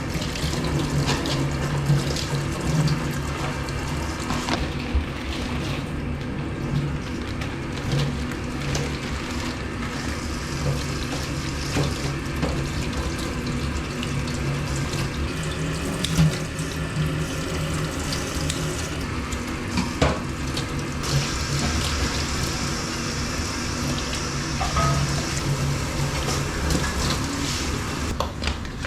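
Water running steadily from a tap into a sink as food is rinsed, with a few knocks and clatters.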